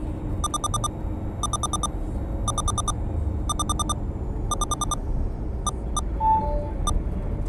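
Road and engine rumble inside a car's cabin at highway speed. Over it an electronic alert beeps in quick bursts of about four roughly once a second, then gives a few single beeps near the end.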